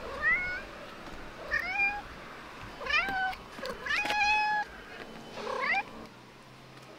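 Black-and-white street cat meowing five times in short rising calls; the fourth meow is longer and held.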